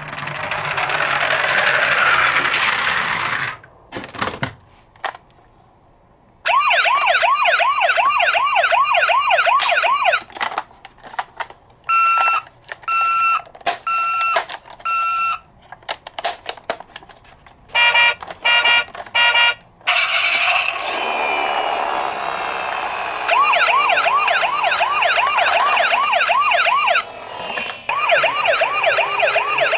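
Emergency vehicle siren sounding in changing patterns: a fast warbling yelp, then short steady beeps about one a second, then the warble again over a loud hiss near the end. Near the start there is a few seconds of plain hiss and a short silent gap before the siren comes in.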